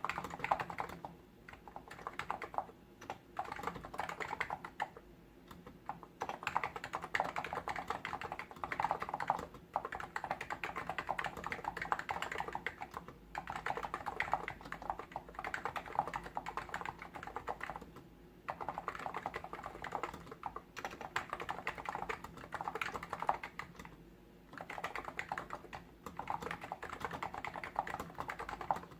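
Typing on a Hansung GTune CHL8 tenkeyless electro-capacitive keyboard: fast, continuous keystrokes in runs, with brief pauses between them.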